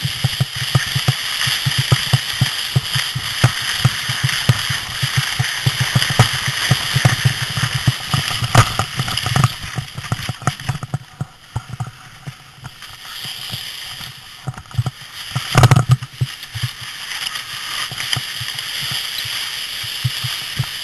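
Sled scraping and bumping down a snow slope, heard close up with many irregular knocks and a steady hiss. There is a quieter stretch in the middle and then one hard thump about three-quarters of the way through.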